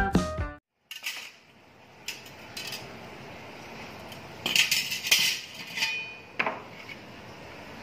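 Pieces of steel plate clinking and knocking together and against a wooden board as they are handled. A few faint clinks come first, then a louder cluster of metallic clinks with a brief ring around the middle, then a couple more knocks.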